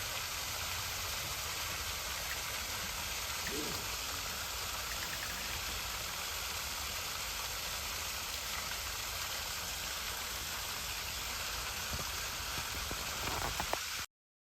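Waterfall: steady rushing and splashing of falling water, which cuts off suddenly near the end.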